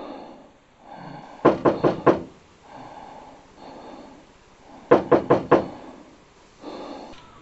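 Knocking on a door: two bursts of four quick raps, about three and a half seconds apart.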